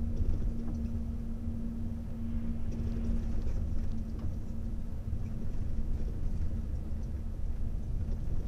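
Steady low rumble of a car driving along a road, engine and tyre noise. A steady hum under it stops about two and a half seconds in.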